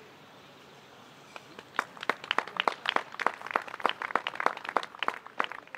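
Small crowd of spectators applauding, with separate hand claps that start about a second and a half in and keep on densely.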